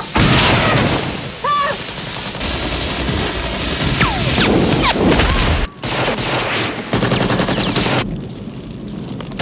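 Gunfire from a movie shootout scene, many shots in quick succession. It breaks off sharply about two-thirds of the way through, then carries on more quietly near the end.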